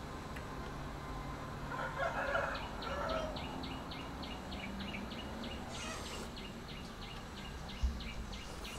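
A chicken clucks about two seconds in. Then an even series of short, high chirps, about four a second, runs until near the end, with a single soft thump just before it stops.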